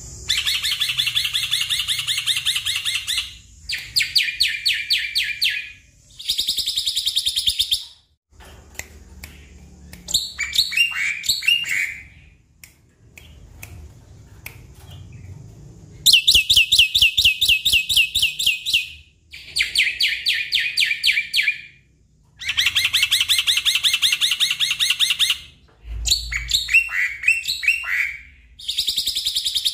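Black-winged myna singing: loud bursts of very fast rattling, repeated notes, each lasting a couple of seconds with short pauses between, mixed with a few squeaky whistles that slide in pitch.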